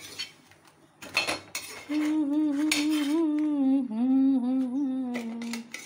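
A metal utensil clicks and scrapes on an iron griddle pan as a paratha is cut. About two seconds in, a woman starts humming a wavering tune for several seconds, and this is the loudest sound.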